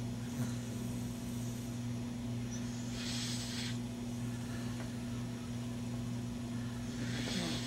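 Sleeping beagle snoring: two hissy, breathy snores about four seconds apart, one about three seconds in and one near the end.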